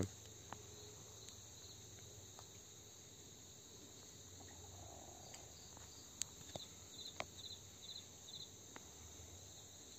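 Faint background hiss with an insect chirping high and quick, a run of about five short chirps in the second half, and a few soft clicks.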